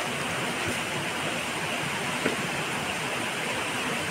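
Mountain stream rushing over rocks, a steady even hiss of water, with one brief tap about two seconds in.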